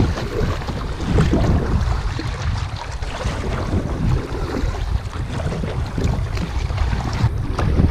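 Wind buffeting the microphone in gusts, over water splashing and lapping around a kayak.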